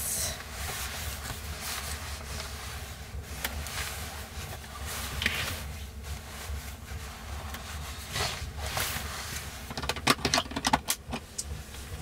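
Nylon sleeping bag rustling and swishing as it is rolled up and stuffed back into its stuff sack, over a steady low rumble. About ten seconds in there is a quick run of sharp clicks.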